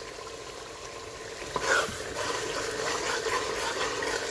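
Thick chickpea curry sizzling and bubbling in a pressure cooker pot as it is fried down, then from about a second and a half in a spoon stirring and scraping through the gravy against the pot.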